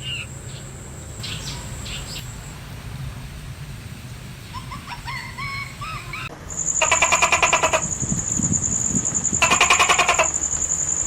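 Animal calls. At first there are short, gliding chirps. Then, after an abrupt change, come two loud, rapidly pulsing trills of about a second each over a steady high whine.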